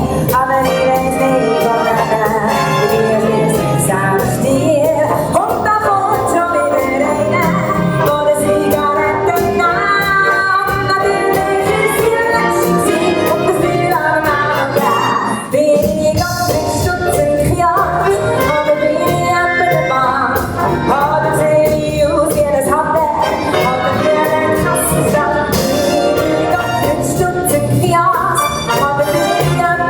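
Big band playing a swing number, with saxophones, brass and rhythm section and a female voice singing at times. There is a brief dip about halfway through.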